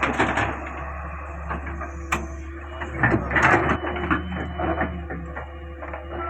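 Caterpillar 385C hydraulic excavator running, its diesel engine a steady low drone, with a sharp knock about two seconds in and a louder burst of mechanical clatter around the middle.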